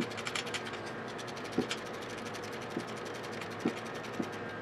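Ratchet wrench clicking rapidly as it backs out a 10 mm bolt, with a few louder knocks of the tool against the engine bay.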